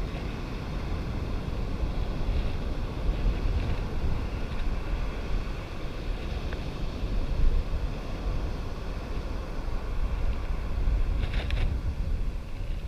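Wind buffeting the microphone in a steady, gusting rumble, with a brief higher-pitched sound near the end.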